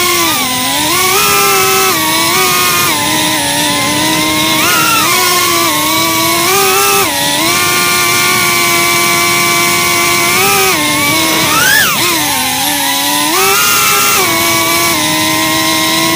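FPV quadcopter's brushless motors and propellers whining, heard through the drone's onboard camera microphone. The pitch holds and then steps up and down with the throttle, with a quick rise and fall about twelve seconds in.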